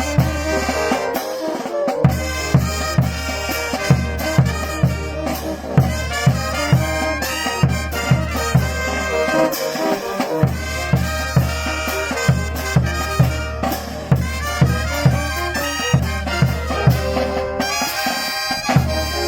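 Brass band music: trumpets over drums and a steady pulsing bass beat. The bass and drums drop out briefly twice.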